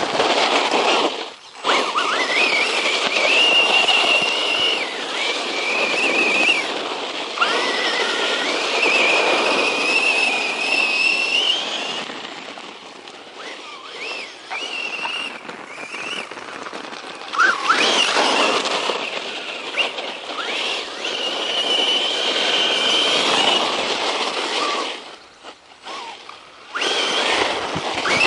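Brushless electric motor of a 1/10-scale RC truck whining under throttle in bursts, its pitch rising and wavering with speed over a rushing noise of tyres and drivetrain. It cuts out briefly about a second and a half in and again near the end.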